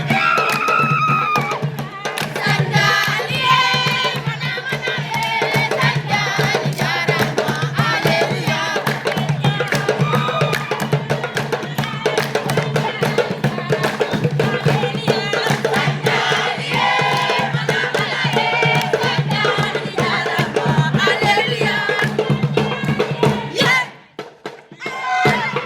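A group singing together to a steady beat of percussion, with a short break near the end.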